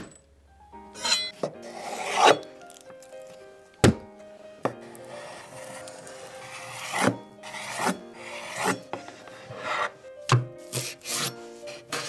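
Kitchen knife slicing through a raw salmon fillet on a wooden cutting board in several long rasping strokes, with sharp knocks of the blade on the board and quick chopping of herbs near the end. Light background music with held notes plays underneath.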